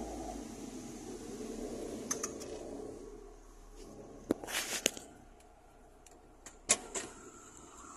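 Ford Aspire's 1300 cc engine idling, heard from inside the cabin, its hum dying away about three seconds in. After that come a few sharp clicks and a short rattle.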